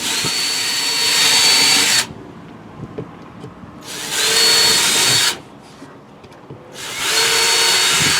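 Power drill running in three bursts, the first about two seconds long and the next two shorter, each with a steady high whine: drilling pilot holes into wood.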